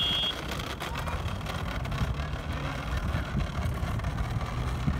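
Steady, uneven low rumble of outdoor background noise, with no single event standing out.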